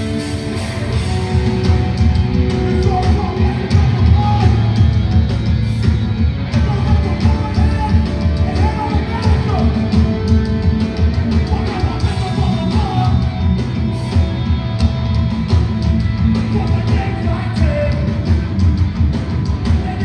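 Live rock band playing loud, with electric guitars, drums and singing.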